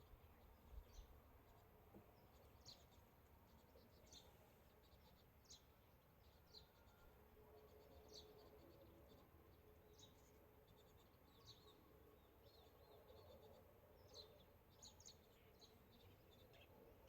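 Near silence: quiet outdoor ambience with faint, short, high chirps every second or two.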